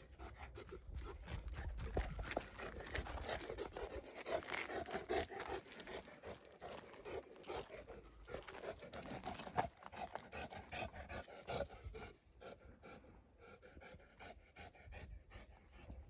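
A Saint Bernard panting hard, with steps crunching on a dirt and gravel path. The panting eases after about twelve seconds.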